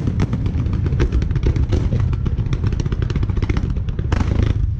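Dense fireworks barrage: many shells bursting in quick succession, sharp cracks and crackling over a continuous rumble of booms, with a brief hissing rush about four seconds in.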